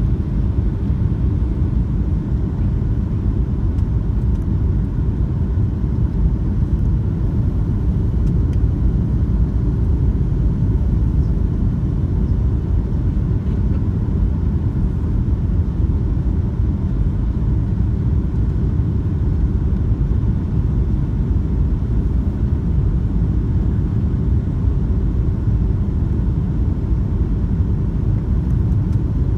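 Steady low rumble of a jet airliner cabin on approach, the engines and airflow heard from a window seat.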